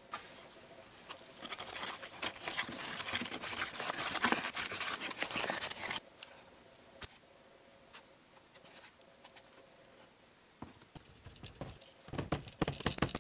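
Plaster being mixed by hand in a plastic cup: a dense scratchy patter for about four seconds, then a few light clicks. Near the end comes a run of quick thumps as the filled cup is pounded on the bench to settle the plaster and drive out air bubbles.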